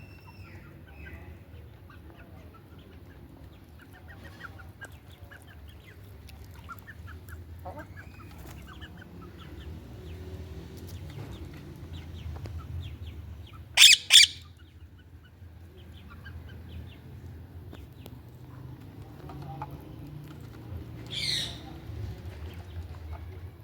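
Indian ringneck parakeet giving two short, loud screeches in quick succession about halfway through, and a single call a few seconds before the end, with soft scattered chirps between over a steady low hum.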